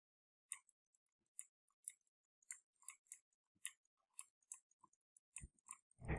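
Faint, irregular clicking of computer input controls during digital sculpting, about two or three clicks a second, with a couple of low thumps near the end.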